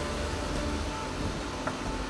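Steady low machinery hum with a faint hiss and a few faint steady tones over it, and one small click late on.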